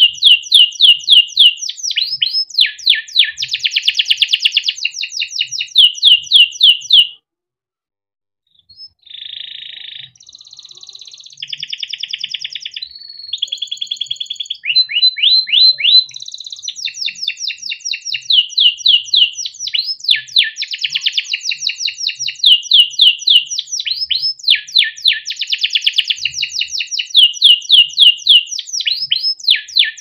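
Young male canary singing a long, continuous song of fast repeated trills and rolling notes. About seven seconds in it stops for a second and a half, then resumes with buzzier rolls before going back to quick trills.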